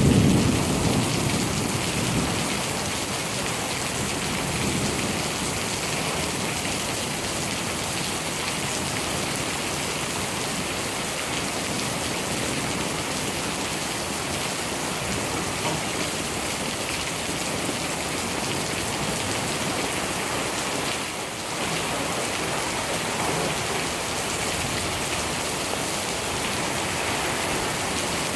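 Thunderstorm: steady rain falling, with a low thunder rumble dying away over the first couple of seconds and fainter rumbles swelling and fading later.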